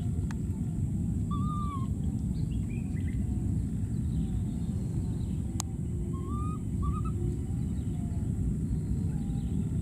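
Outdoor ambience: a steady low rumbling noise, with faint short rising-and-falling animal calls about a second and a half in and again twice around six and a half seconds, and a single sharp click near the middle.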